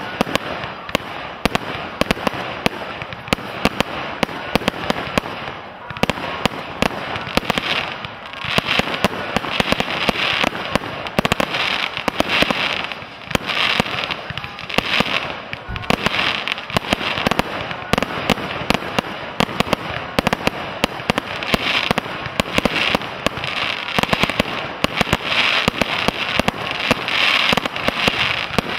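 Professional firework display: a dense, unbroken run of bangs and pops from bursting aerial fireworks, with waves of crackling every second or two.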